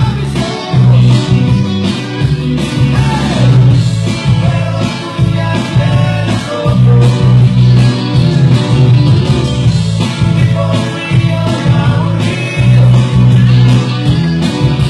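Loud dance music played through a mobile DJ sound system, with a steady beat and a heavy bass line.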